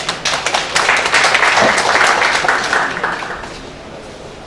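Audience applauding, a dense patter of many hands clapping that dies away about three and a half seconds in.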